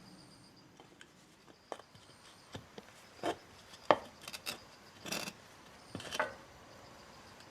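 Suzuki Jimny JB23 axle turned by hand with the wheel jacked up, giving a series of irregular knocks and metallic clanks, the loudest a sharp clank near the middle. The owner takes the clank for the ring gear and drive pinion teeth striking each other through backlash inside the differential case, as the wheel is spun hard.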